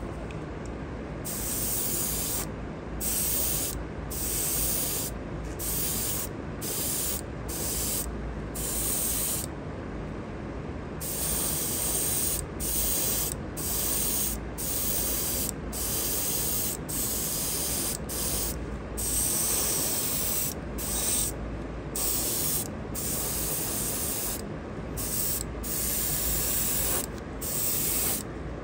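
Airbrush hissing as paint is sprayed onto a diecast model truck body, in short passes about a second long that stop and start again and again as the trigger is pressed and released. A steady low hum runs underneath.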